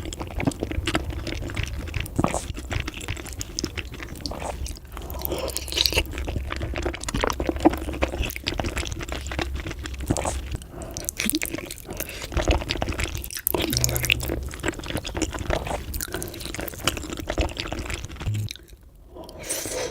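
Close-miked chewing of gelatinous beef feet: dense, irregular wet smacks, squishes and sticky mouth clicks, with a short pause near the end.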